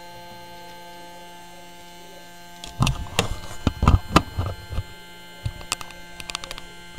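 A steady electrical mains hum with several overtones runs underneath. From about three seconds in comes a cluster of knocks, taps and clicks of things being handled and moved, then a few lighter clicks near the end.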